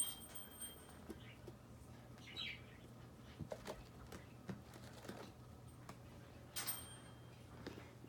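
Faint, scattered taps and rustles of kittens playing on carpet, with a few brief high chirps, over a faint low hum.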